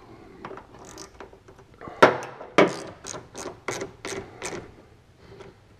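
A quick run of sharp mechanical clicks and knocks, about three a second, starting about two seconds in, with a few fainter clicks before it.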